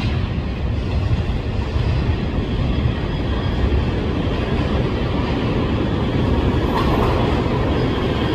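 A New York City subway train running along the track: a steady low rumble with the clatter of wheels over the rails.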